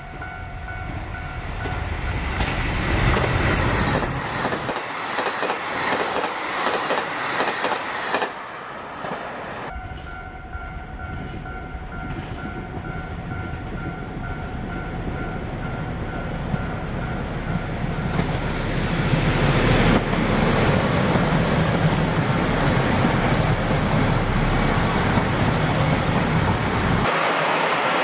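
Two JR Hokkaido diesel limited express trains pass, one after the other. The first runs through loudly in the opening seconds. After a cut, the second approaches and goes by close, its wheels clattering over the rail joints and growing loudest in the last third. A steady ringing tone, like a level crossing bell, is heard at the start and again while the second train approaches.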